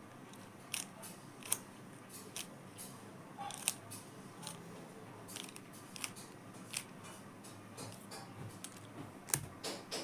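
Plastic 3x3 Rubik's cube clicking as its layers are turned through an algorithm: sharp, irregular clicks about once a second.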